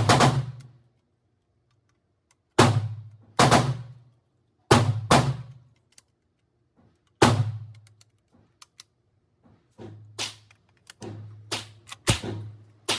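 Music with heavy, booming drum hits spaced a second or two apart; about ten seconds in, a faster drum beat starts over a steady low bass note.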